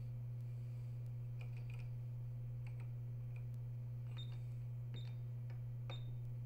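Ultrasound machine console being operated: scattered key clicks, three of them with a short high beep, over a steady low electrical hum.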